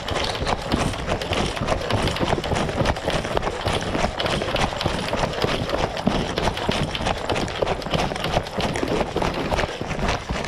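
Footsteps and rustling through dry woodland undergrowth, a dense, continuous crackle of close-spaced clicks, as of someone moving quickly over leaves and twigs.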